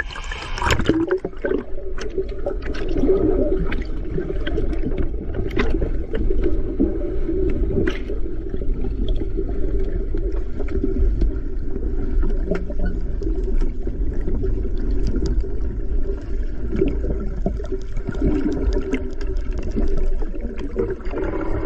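Several swimmers splashing into a swimming pool, then a steady muffled underwater rumble and hum with bubbling and scattered clicks, heard through a microphone beneath the surface as they swim.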